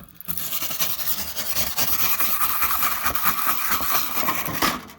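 Rapid, continuous scrubbing on the steel blade of a rusty vintage Disston handsaw, cleaning off dirt and rust. It stops abruptly just before the end.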